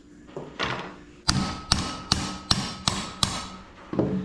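Six hammer blows on a wood splitter's steel hydraulic cylinder, about two and a half a second, each with a short metallic ring, driving the stiff piston rod out during the rebuild.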